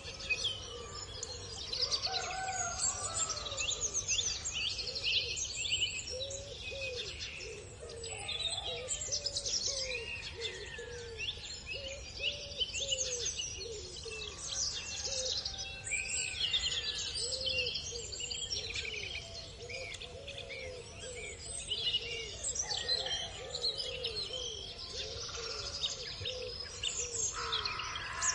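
Dawn chorus of many songbirds chirping and trilling over one another, with a lower call repeated again and again underneath, over a steady low background rumble.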